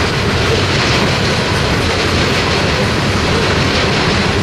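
Freight train of coal gondolas rolling past: a steady, loud noise of steel wheels running on the rails.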